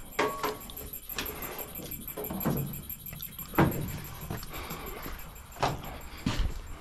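Scattered metal clinks and knocks, about six in all, over a faint, steady, high-pitched pulsing from an electronic critter repeller.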